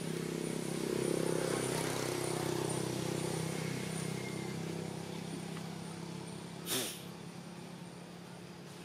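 A motor engine drones steadily, swelling about a second in and then slowly fading away. A single sharp click comes near the end.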